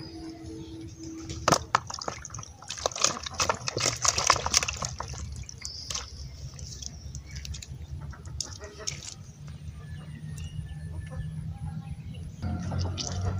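Live fish splashing and slapping in a shallow plastic basin of water and on wet mud, with a cluster of sharp wet slaps and knocks about two to five seconds in.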